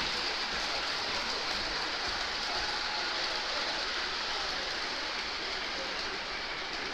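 Gauge 1 model trains rolling along metal track, making a steady, even hiss without distinct clicks.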